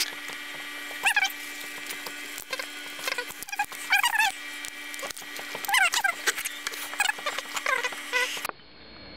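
A small animal squeaking: short, high chirps that bend up and down in pitch, coming in irregular clusters every second or so over a steady hum. The sound cuts off abruptly near the end.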